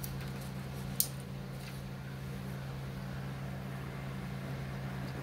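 A steady low hum, with a single sharp click about a second in.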